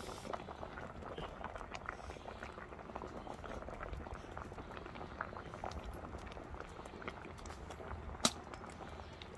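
Rice-water broth with sliced radish at a hard, rolling boil in a cast-iron pot, bubbling with many small pops. There is a single sharp click near the end.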